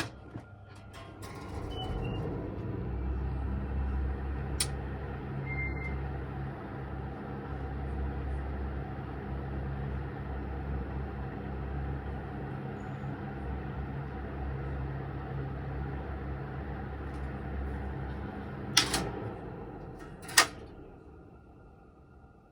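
Mitsubishi EFG-20SB ventilation fan switched on with a click, its motor and blades spinning up to a steady hum with a rush of air. Near the end two sharp clicks come as it is switched off, and the hum winds down and fades out.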